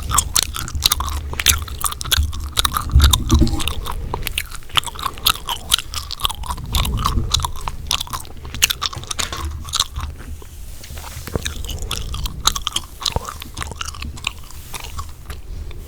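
Gum being chewed close to the microphone: a fast, irregular run of wet smacks and clicks.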